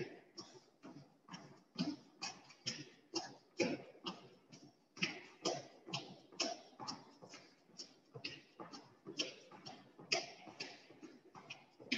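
Irregular light thuds and taps of feet landing as several people jump and switch legs in a workout, a few a second, heard over a video call.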